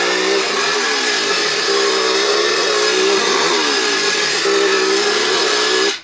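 Chainsaw running loudly, its engine pitch swinging up and down several times as it revs, then cutting off suddenly near the end.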